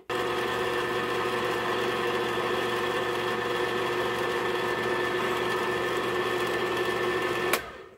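Oster electric stand mixer running at a steady speed, its motor giving a steady hum and whine as the beaters work butter into flour for cookie dough. It starts abruptly at the beginning and is switched off with a sharp click near the end, the motor then winding down.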